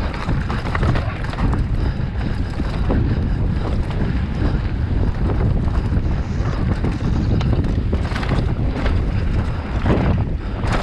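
Wind rushing over a GoPro's microphone as a mountain bike descends a dry, stony trail at speed. Tyre noise runs under it, with a few brief knocks and rattles from the bike over stones.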